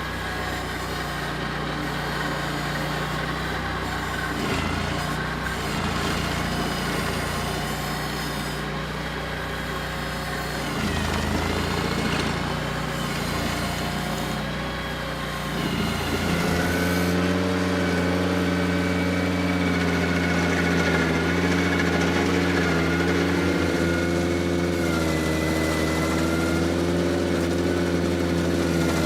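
Ventrac compact tractor engine running with the KC180 stump grinder attachment. About halfway through the engine steps up to a higher, louder speed and holds there, its note wavering slightly near the end.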